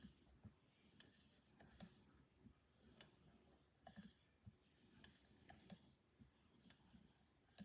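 Buck 119 hunting knife blade drawn across a strop loaded with diamond compound, with faint hissing strokes about once a second and light clicks as the blade is turned between passes.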